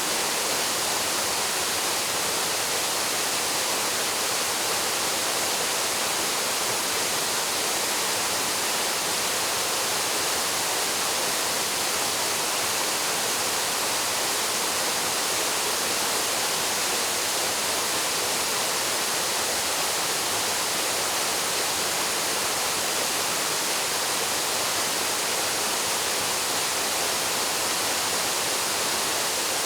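Waterfall plunging into its pool, a steady, even rush of falling water with no change throughout.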